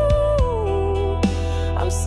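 A slow pop ballad: a long held sung note that slides down to a lower pitch, over a steady bass and soft kick-drum beats.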